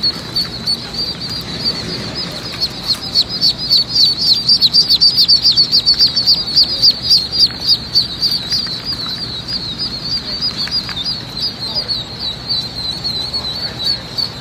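A crowd of Khaki Campbell ducklings peeping: a dense stream of short, high-pitched calls, busiest and loudest a few seconds in.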